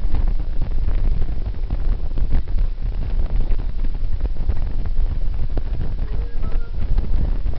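Wind buffeting the microphone of a camera riding on a moving motorcycle: a loud, steady low rush with frequent gusty thumps. The bike's engine and road noise run underneath.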